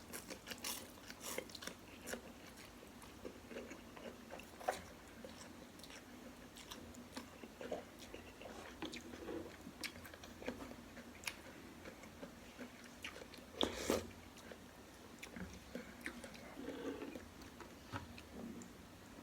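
A person chewing and biting into beef meatballs and soup close to the microphone: wet mouth smacks and small clicks scattered throughout, with a louder smack about fourteen seconds in.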